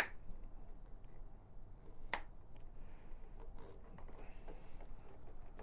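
Faint handling noise of hands fitting a rubber intake piece onto a motorcycle's plastic body parts, with two short sharp clicks about two seconds apart.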